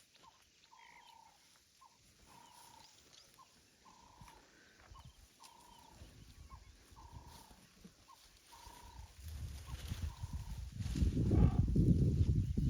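A bird repeats a short, level whistled note about every second and a half. From about nine seconds in, a deep African elephant rumble builds up and is loudest near the end.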